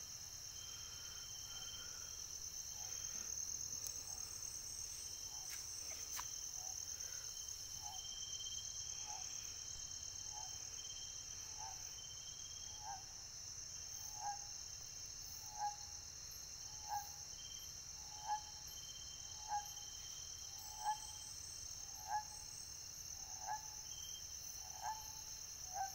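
Night insect chorus: crickets trilling steadily and high-pitched. From about halfway on, a short animal call repeats at an even pace, about three every four seconds, and stands out as the loudest sound.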